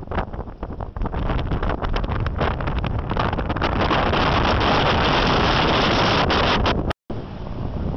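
Wind buffeting the microphone on a moving boat, over the dull rumble of the boat and water. It comes in gusts at first, then builds to a loud, steady rush. The sound cuts out completely for a split second near the end, then returns quieter.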